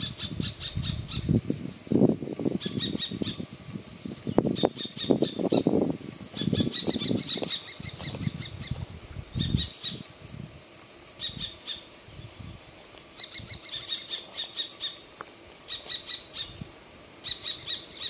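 Common kestrel chick calling in short rapid runs of high, squealing notes, repeated every second or two, while it is held in the hand. Irregular low knocks and rustling from the handling are mostly in the first half.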